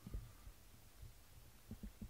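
Faint, soft low thumps from a cat feeding with its head in a ceramic bowl: one just after the start, one about a second in, and two close together near the end.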